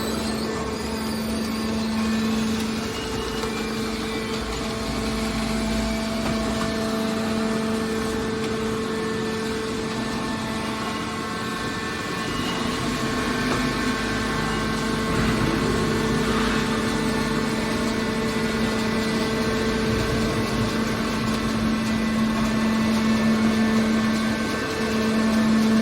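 Hydraulic iron baler running: its hydraulic power unit gives a steady, even hum over a noisy mechanical background.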